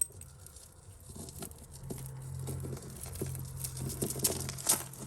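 Small clicks, clinks and rustles of tangled costume-jewellery chains and beads being pulled and worked apart by hand, with a couple of sharper clicks near the end. A steady low hum comes in about two seconds in.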